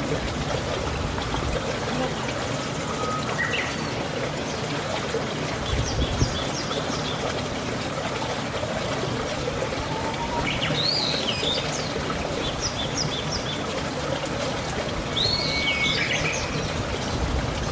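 Small wild birds chirping now and then, in short runs of quick high notes, over a steady rushing background noise.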